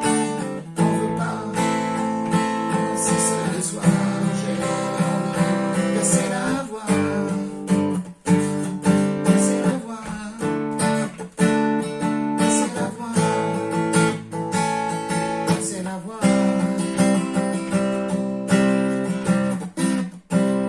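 Acoustic guitar strummed in a steady rhythm, its chords ringing between the strokes, with a few brief breaks at chord changes.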